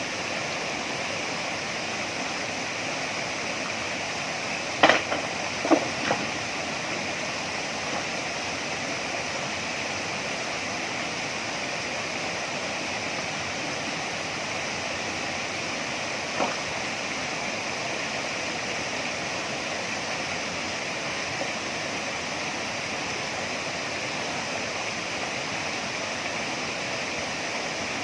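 Steady rush of a waterfall and stream. Three sharp knocks come about five to six seconds in, and one more near the middle.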